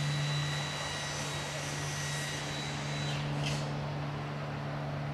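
A steady low hum with a faint high whine over an even hiss, and a brief swishing sweep about three seconds in.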